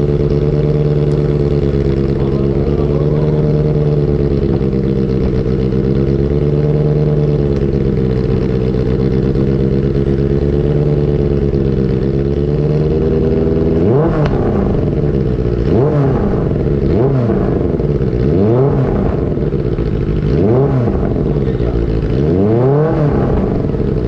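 Benelli TNT 600i's inline-four running through an IXIL exhaust with the dB killer removed. It holds a steady note for about 13 s, then is revved about five times, each rev a quick rise and fall in pitch.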